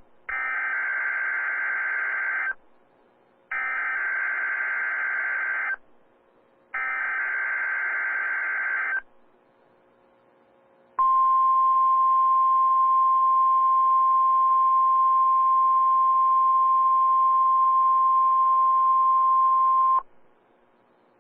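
NOAA Weather Radio's SAME digital header: three bursts of data tones, each a little over two seconds with about a second between them. After a short pause comes the weather radio warning alarm tone, one steady pitch held for about nine seconds and then cut off sharply. This opens a test of the alarm system.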